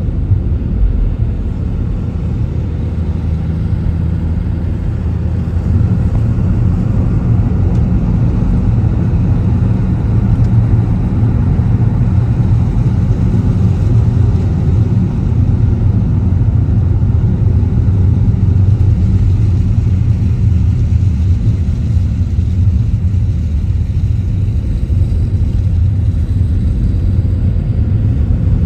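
A car driving, with a steady low rumble of road and engine noise that builds slightly in the first few seconds; a faint rising engine tone starts near the end.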